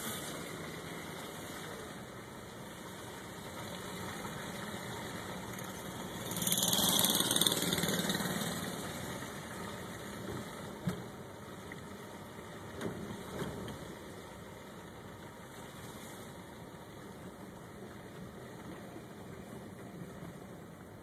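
A motor vehicle's engine running steadily, with a louder rushing swell about six seconds in that lasts a couple of seconds, and a few light knocks later.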